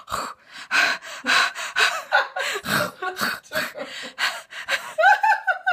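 Rapid, breathy gasps and snorts from a person, about three a second, ending in a short high-pitched voiced squeal near the end. It is either laughter or a mock display of noisy eating.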